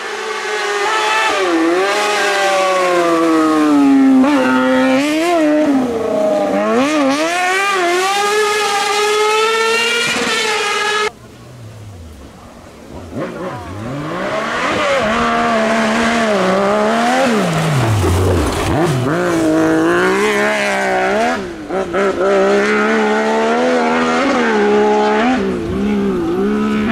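Kartcross buggies' high-revving engines driven hard along a stage, the pitch climbing and dropping with throttle and gear changes. There are two passages, with an abrupt cut about eleven seconds in.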